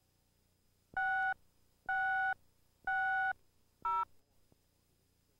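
Electronic countdown beeps on a videotape commercial slate: three identical steady tones about a second apart, each under half a second, then a shorter beep at a different pitch about four seconds in.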